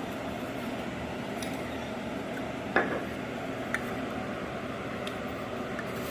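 Spoon mixing seasoned flour in a bowl, with a sharp clink of the spoon against the bowl about three seconds in and a lighter one a second later, over a steady background hiss.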